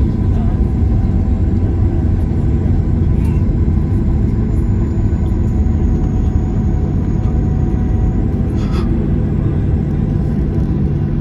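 Steady cabin rumble of a Boeing 737-800 rolling on the ground after landing, its CFM56 engines running with a faint whine over the low road noise. A single short clunk about eight and a half seconds in.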